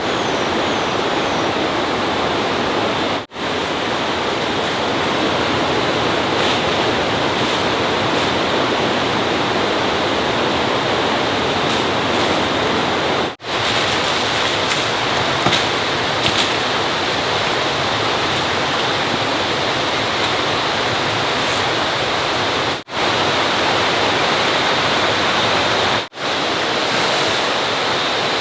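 Steady rushing noise of running water, with a faint steady high tone above it. The noise drops out for an instant four times.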